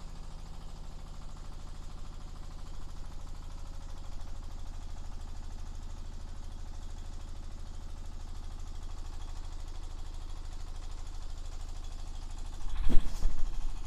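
A 17 hp diesel engine running steadily with a regular beat, driving a wet feed pellet machine through a modified gear drive. A brief, louder burst of noise comes about a second before the end.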